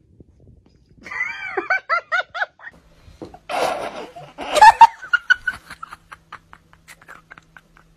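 A person laughing: a run of short bursts starting about a second in, then louder, breathier laughter a couple of seconds later.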